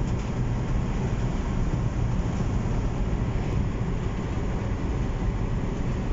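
Steady engine and road noise inside a moving vehicle's cabin: an even low rumble under a broad hiss, with no changes.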